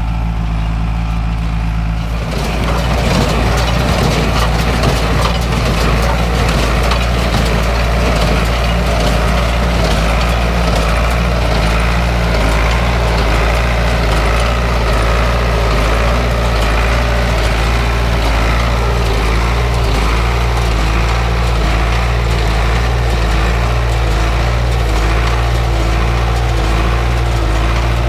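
Ford 6610 diesel tractor running steadily, joined about two seconds in by a small square baler clattering as it packs hay, a dense run of rapid knocking and crunching over the engine.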